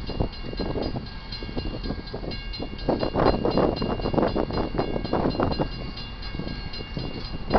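Loaded freight cars of a Union Pacific train rolling past, steel wheels clicking over the rail joints in irregular clusters over a continuous rumble, with a faint steady high ringing.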